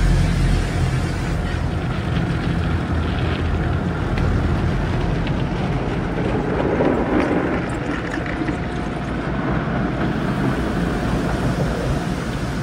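Automatic tunnel car wash working over the car, heard from inside the cabin: a steady rush of water and soap spray on the glass and body, with a low rumble that eases after about four seconds.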